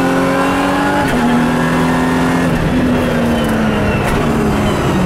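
Lotus race car engine heard from inside the cabin, pulling hard with its pitch climbing. It breaks briefly about a second in at a gear change, climbs again, then falls in pitch through the second half as the car slows, over a steady rumble of road noise.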